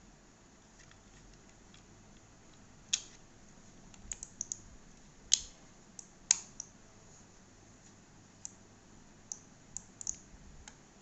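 Sharp plastic clicks and snaps as the battery cover of a Dell WM118 wireless mouse is pressed back into place, with three loud snaps about three, five and six seconds in. Lighter, scattered clicks follow toward the end as the mouse is handled.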